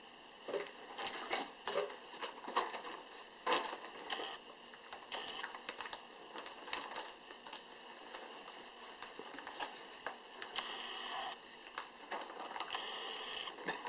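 Gift wrapping crinkling and rustling in irregular short bursts as dogs get at their Christmas presents.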